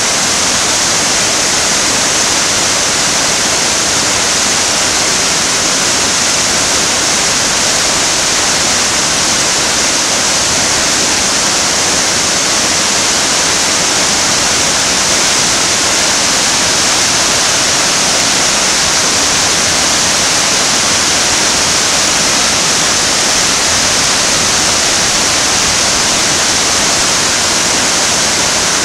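White water pouring over a rocky river drop: a steady, loud rush that does not change.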